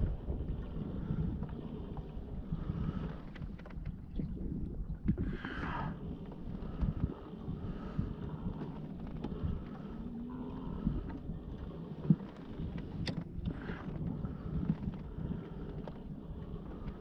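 Wind buffeting the microphone, with water moving against a kayak hull as it trolls along. There are scattered light knocks, and two brief higher-pitched sweeps, about five and a half and thirteen and a half seconds in.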